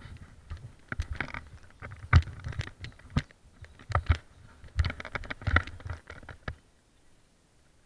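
Mountain bike clattering and rattling over a packed-dirt jump trail, with several heavy thuds as the wheels hit the ground and the bike jolts over bumps; it goes quiet near the end.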